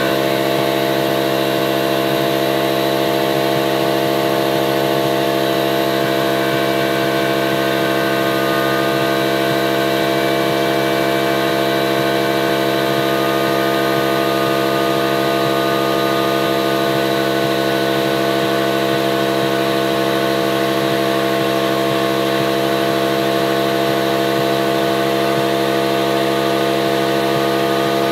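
Air compressor supplying a pneumatic engraving system, its motor running steadily at one unchanging pitch.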